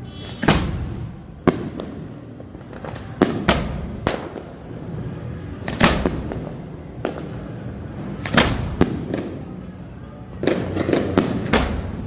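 Fireworks bursting: about a dozen sharp bangs at uneven intervals, some standing alone and some in quick runs of two to four, with a short crackling tail after the louder ones.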